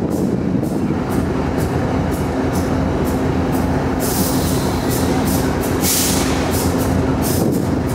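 BNSF diesel locomotives running: a steady low engine rumble with a held hum, and two short bursts of hiss about four and six seconds in.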